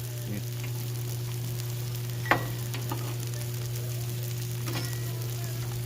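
Steaks and pork chops sizzling on a 22-inch Blackstone griddle: a steady frying hiss with small crackles and one sharp pop a little over two seconds in, over a steady low hum.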